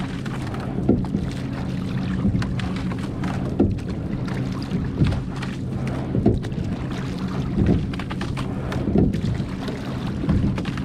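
Coastal rowing boat under way with oar strokes in a steady rhythm, about one every 1.4 seconds, over the wash of water and a steady low hum.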